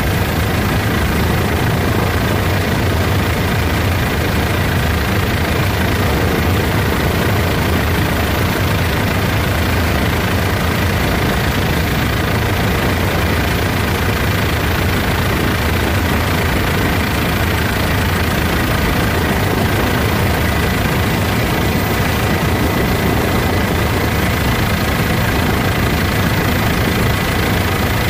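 Steady helicopter noise in flight: a loud, even low drone from engine and rotor, with a thin high whine held over it.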